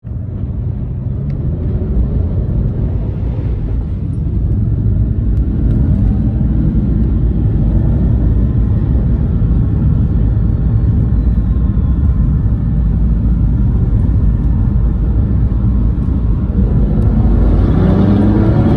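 Aston Martin DB9's V12 engine and tyre rumble heard from inside the cabin as the car accelerates. The engine note climbs in pitch and grows louder over the first few seconds, settles into a steady rumble, then climbs again near the end.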